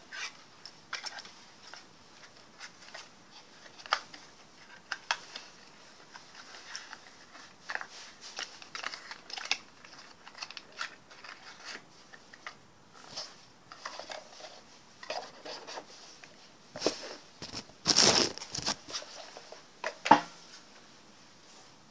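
Packaging being handled close to the microphone: scattered clicks and rustling, with a louder rustling burst near the end followed by a sharp click.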